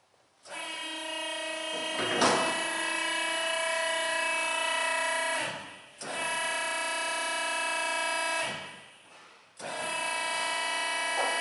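A BEcom BE-SRB-250 spiral mixer's motor whining as it runs in three stretches. Each run starts suddenly with a steady humming tone. The first two wind down over about a second. There is a sharp clunk about two seconds in.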